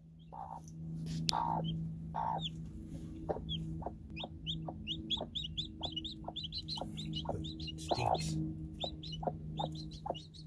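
Newly hatched chicks peeping, sparse at first and then several high peeps a second from about three seconds in, with a few low clucks from the broody Barred Rock hen near the start and again about eight seconds in. A steady low hum runs underneath.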